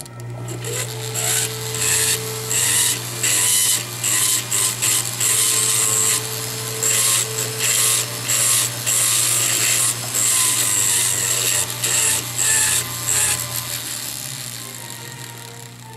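Jeweller's rotary handpiece running a bur inside a metal bezel cup, enlarging the seat for a cabochon. The steady motor hum runs under a high scraping hiss that comes and goes as the bur cuts in short repeated passes, then fades near the end.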